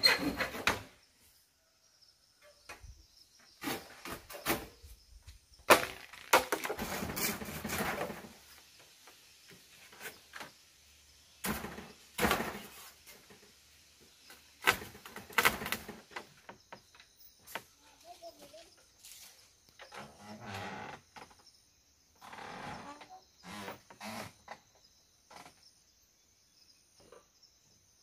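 Bamboo slat floor and frame knocking and rattling irregularly under a person's weight as he steps and shifts about on it, with a few longer stretches of creaking. About halfway in, a steady high insect chirring joins in the background.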